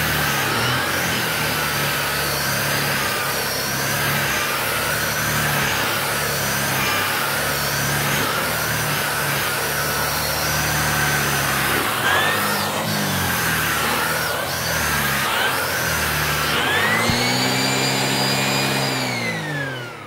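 Shark DuoClean Powered Lift-Away upright vacuum (AX910UK) running with its motorized pet brush tool worked over a fabric sofa cushion: a loud, steady rush of suction under a motor whine that wavers in pitch as the tool moves. Near the end the whine rises, then falls away as the motor winds down.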